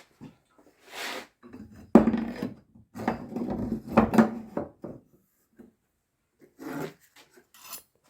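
Metal workpieces handled on a workbench: a sharp knock about two seconds in, then scraping and clattering for a few seconds, and a few more short scrapes near the end.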